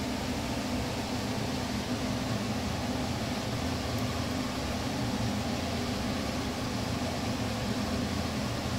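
Steady hum and hiss of a running fan, unchanging throughout.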